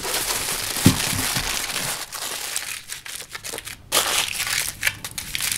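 Aluminium foil crinkling and crackling as it is scrunched and pressed by hand around a small water container. There are a few soft knocks in the first second and a half, and the crackling eases off in the middle before picking up again near the end.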